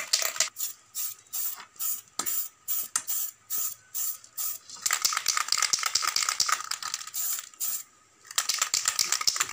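Aerosol spray paint can being shaken, its mixing ball rattling inside. It comes in fast runs, with slower, separate shakes of about three a second through the first half.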